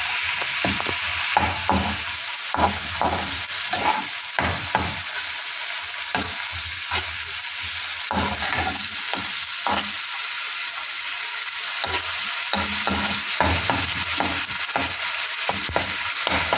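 Onion-tomato masala frying in oil in a non-stick karahi, sizzling with a steady hiss, while a metal slotted spoon stirs and scrapes it against the pan in irregular strokes. The masala is being fried until the tomatoes soften and the oil starts to separate.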